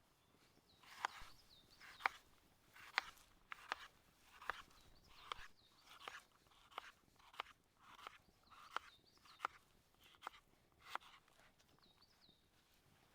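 Knife cutting food on a cutting board, about one cut a second, each ending in a sharp click against the board.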